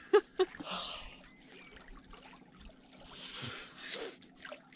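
A swimmer gasping and blowing out breath in cold water: two short sharp gasps near the start, then a few breathy puffs, with a little water splashing.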